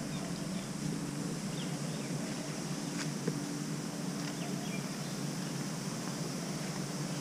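Steady outdoor background noise with a low hum, and a few faint short chirps.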